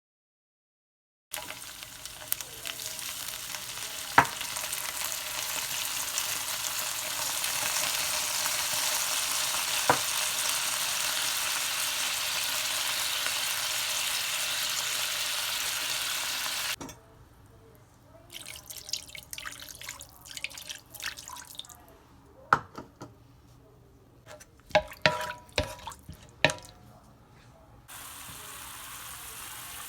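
Kitchen cooking sounds: a steady hiss for about fifteen seconds, then a quieter stretch of scattered clinks and knocks of utensils, and a steady hiss again near the end.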